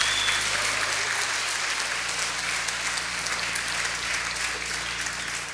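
Audience applauding, many hands clapping together, with a brief high whistle right at the start. The clapping begins to die away near the end.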